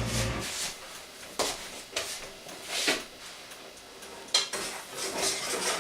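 Kitchenware clinking and scraping: a metal utensil knocking against a pot or dishes several times.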